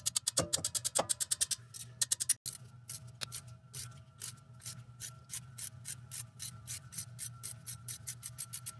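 Ratchet wrench with a socket clicking as it works an exhaust manifold bolt on a 5.7L HEMI: a fast run of clicks for the first second and a half, then steady clicking about three or four a second.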